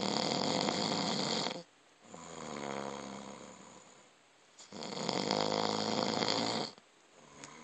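A man snoring: two loud snores about five seconds apart, with a softer, quieter sound between them.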